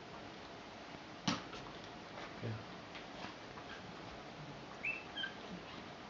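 Newborn puppies squeaking, two short high squeaks about five seconds in. Before them, a sharp knock and light rustling as the dogs move on the whelping-box fleece.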